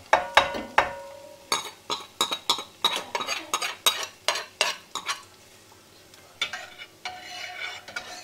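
Hot oil tempering poured into a pot of sambar with a brief sizzle, then a metal spoon stirring it in, clinking sharply against the enamelled cast-iron pot about three or four times a second for a few seconds before going softer near the end.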